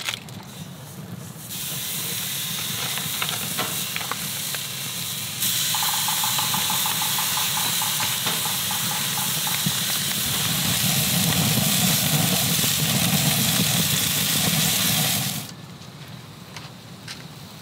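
Marinated steaks sizzling on the hot grate of a propane gas grill. The sizzle starts as the first steak goes down, grows louder a few seconds later when the second is added, and cuts off suddenly near the end.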